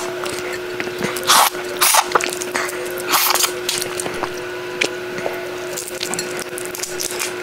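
Three short wet slurps from sucking at a cooked red prawn's head, followed by soft crackles and clicks as its shell is peeled by hand.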